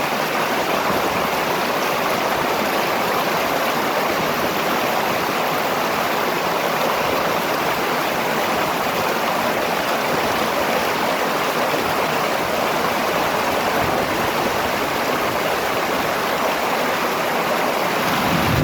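River water flowing over its bed, a steady rushing with no change in level.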